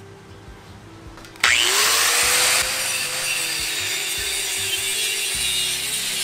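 Electric angle grinder with a cut-off disc starting about a second and a half in, its motor pitch rising as it spins up, then cutting through a steel pipe with a steady grinding noise.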